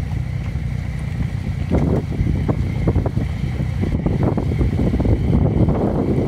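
Low, steady rumble of a motor vehicle's engine running, with a few small knocks over it.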